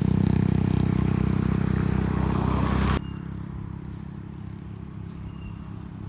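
A steady motor hum, loud for about three seconds, then cutting suddenly to a quieter steady hum with a low pulsing throb.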